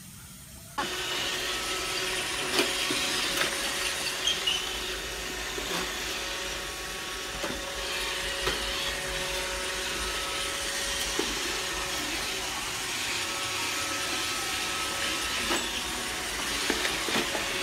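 Robot vacuum cleaner running with a steady whirring hum, starting about a second in, with occasional short clicks and knocks.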